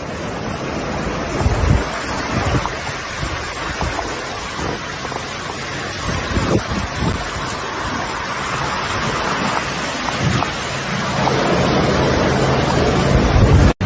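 Rushing floodwater and wind: a steady roar of noise with gusts buffeting the microphone in low rumbles. A steady low hum joins about eleven seconds in.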